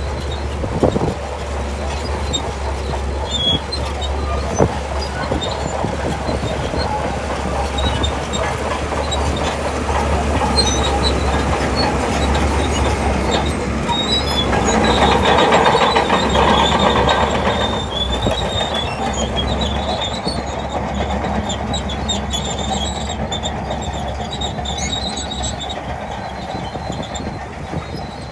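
Shantui DH17C2 crawler bulldozer working: its diesel engine runs steadily while the steel tracks squeal and clank. The sound swells for a few seconds about halfway through.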